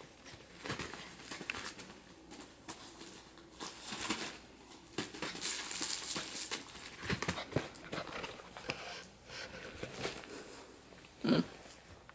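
Goldendoodle puppy scrabbling and playing on a blanket over a plastic mat: irregular rustling, crinkling and scratching, with one brief louder sound near the end.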